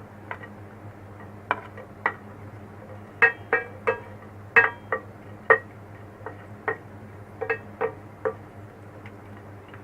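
A spoon or spatula clinking against a metal pan while cashews are stirred in hot ghee: a scattered series of sharp clinks, a few ringing briefly, over a low steady hum.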